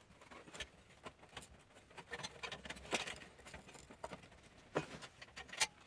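Faint, scattered clicks and scrapes of hands working inside an opened Apple Macintosh SE case, handling its parts to free the motherboard.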